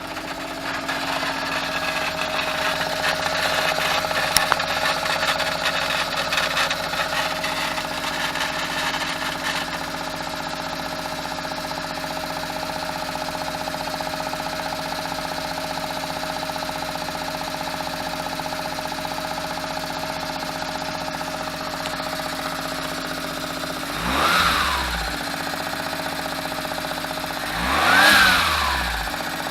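Autozam AZ-1's small turbocharged three-cylinder engine idling with a harsh rattle (ガラガラ) over it, which eases off about a third of the way through; near the end the throttle is blipped twice, short revs rising and falling. The owner suspects the rattle comes from the gearbox: it shows up mostly when cold and stops when the clutch is pressed.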